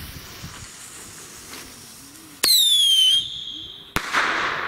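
Whistling mini rocket with a bang: the lit fuse hisses, then about two and a half seconds in the rocket takes off with a loud whistle falling in pitch. About a second and a half later it explodes with a single sharp bang that echoes.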